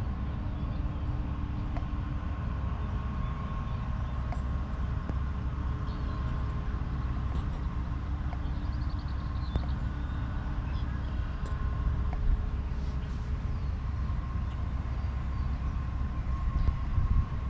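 Steady low outdoor rumble with a faint, even hum above it and no distinct events; a brief high trill about nine seconds in.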